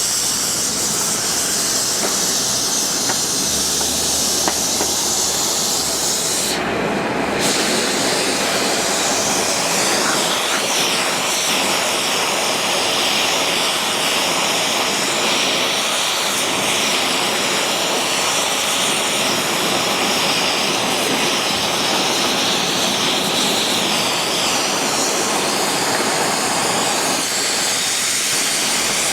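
Gas torch burning steadily, a constant rushing hiss as its flame heats a lead-casting mould.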